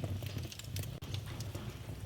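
Fire in a fireplace crackling: irregular sharp pops and snaps over a steady low rumble of the flames.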